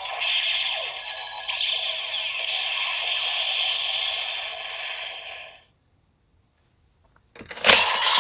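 Electronic finisher music and sound effects from a DX Kamen Rider Zero-One transformation belt toy, played through the toy's small speaker, stopping abruptly about five and a half seconds in. Near the end, a sharp loud plastic clack as the toy is handled.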